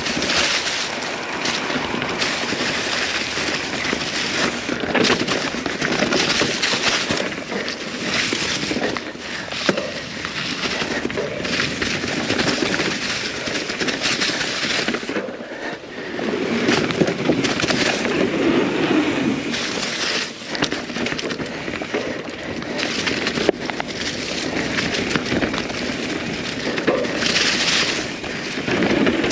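Norco Sight full-suspension mountain bike riding down a dirt trail, heard through an action camera's microphone: a continuous rush of wind and tyre noise with rattling and clatter from the bike over rough ground. There is a brief lull about halfway through.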